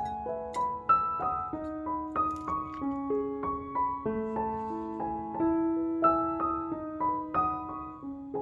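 Background music: a gentle solo piano melody, single notes struck one after another over held lower notes.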